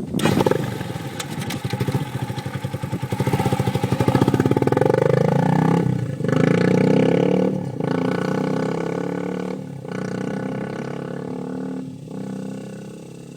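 Honda CRF230M single-cylinder four-stroke engine through a Two Brothers aftermarket exhaust, revving up with the pitch rising. The sound breaks off briefly about four times, as with throttle lifts or gear changes, and gets steadily quieter toward the end.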